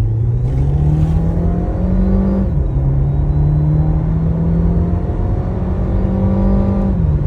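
Volkswagen Polo 1.4 turbo petrol engine accelerating hard under full throttle, its pitch climbing and then dropping sharply twice, about two and a half seconds in and near the end, as the gearbox shifts up. A faint high turbo whistle runs over the engine note.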